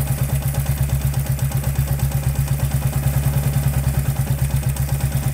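Royal Enfield Classic 350 BS6 J-series single-cylinder engine idling steadily, with an even pulse of about six to seven beats a second. A light tick-tick still comes from the engine, which the mechanic puts down to a piston worn from being run without engine oil.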